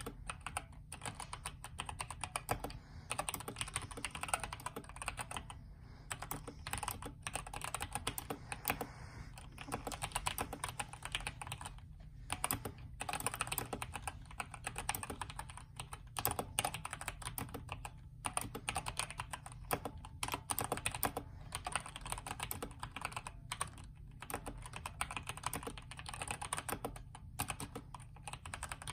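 Typing on a modded Redragon K552 mechanical keyboard with stock Outemu red linear switches, a polyfill-filled case, a tape-modded PCB and taped space-bar stabilizers. Keystrokes come in a rapid, continuous stream, broken by short pauses every few seconds.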